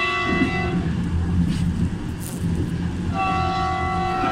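A train horn sounding a steady multi-note blast that cuts off just under a second in, then sounding again about three seconds in, over the low rumble of the train running on the track, heard from the cab.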